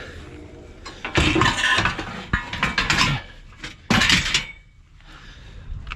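Metal bed frame rails clanking and rattling against each other as they are handled: a clatter of strikes about a second in lasting a couple of seconds, then another short clank near four seconds.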